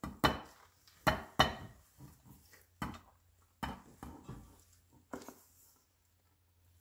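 Kitchen utensils knocking and scraping as a thick whipped-cream mixture is worked out of a stainless steel mixing bowl into a glass baking dish: about six sharp, irregular knocks, with the last one a little after five seconds in.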